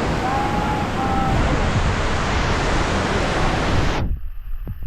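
Steady rushing of the Tumpak Sewu waterfall close by, with low wind buffeting on the microphone. About four seconds in it cuts abruptly to a duller low rumble.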